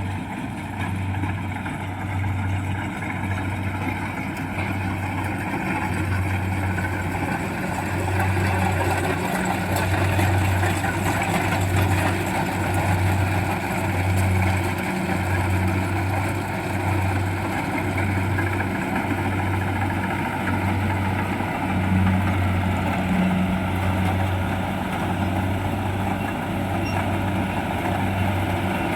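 Kubota 68 tracked mini combine harvester running steadily, its machinery noise carrying a low throb that pulses about once a second.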